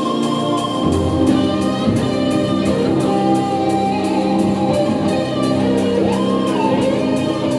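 Rock band playing live: a sustained lead melody line with a pitch bend near the end, over held chords and a steady drum-and-cymbal beat.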